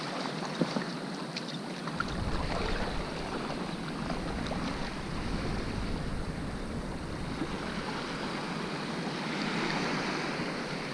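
Waves washing at the water's edge with wind on the microphone, a steady rush of noise with a few faint small clicks; a low wind rumble comes in about two seconds in.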